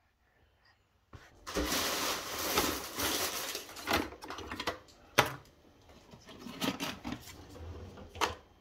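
Kitchen clatter: objects being handled and set down, starting about a second in, with a few sharp knocks.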